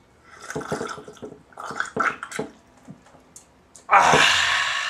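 Mouth-made drinking noises: a string of short, irregular slurps and gulps, then, about four seconds in, a loud hissing gush lasting nearly a second.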